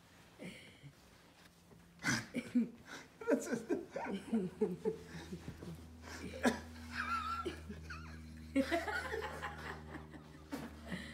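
People laughing in short chuckles, in several bursts.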